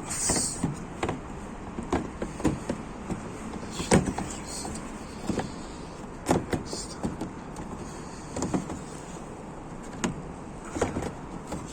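Irregular clicks and knocks of plastic parts being handled as a car's fog light is pushed back into its opening in the front bumper. There is a brief rustle at the start, and the loudest knocks come about four and six seconds in.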